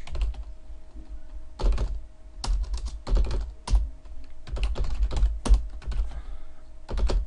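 Computer keyboard typing in short irregular bursts of keystrokes with pauses between, as short commands are typed into a command prompt. A faint steady hum runs underneath.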